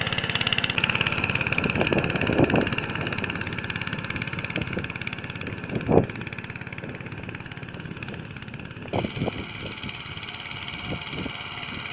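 Motor Sich MB-9E walk-behind tractor engine running steadily under load as it tows a harrow, fading as the machine moves away. A few brief knocks stand out, the loudest about halfway through.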